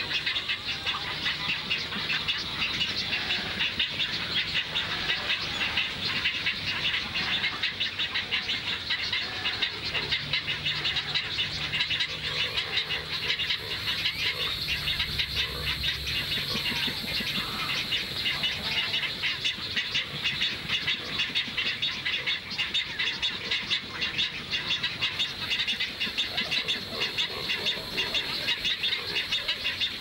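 Outdoor nature ambience: a steady, dense chorus of rapid high-pitched chirps.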